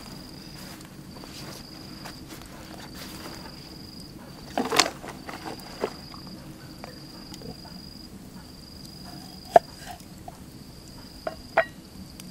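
An insect trilling steadily at a high pitch in stretches of about a second with short breaks, with a few sharp knocks, the loudest about five seconds in and others near the end.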